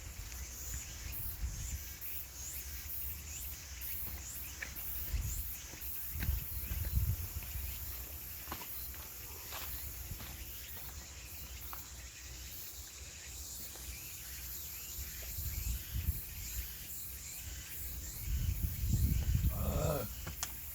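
Hand saw cutting through firewood in repeated short strokes, with a few low rumbling bumps on the microphone, the loudest near the end.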